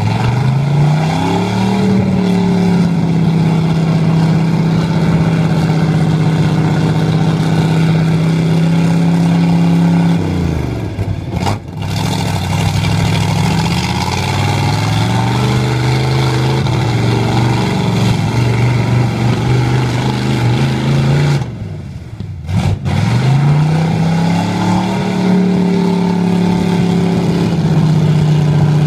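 A Chevy mud truck's 383 small-block V8 with a mild cam, revved up and held at high rpm three times, dropping back sharply between, as the truck drives through deep mud on 54-inch Bogger tyres.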